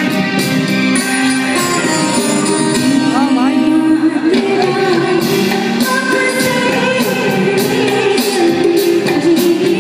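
A woman singing a Hindi film song live, backed by a band of keyboard, electric guitars and drums, with a steady beat. Her voice wavers on a held note about three seconds in.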